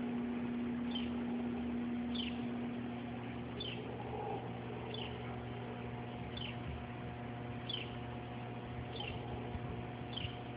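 A bird repeating a short, high call that falls in pitch, evenly about every second and a quarter, eight times, over a steady low hum.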